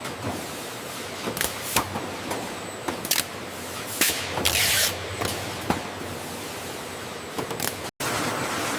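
Packaging-line machinery running: a steady mechanical noise with irregular clicks and clacks, and a short hiss of air about four and a half seconds in.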